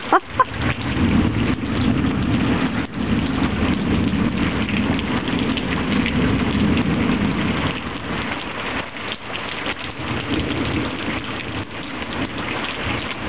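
Heavy rain pouring down steadily, with a low rumble of thunder that swells from about a second in and eases after about seven seconds.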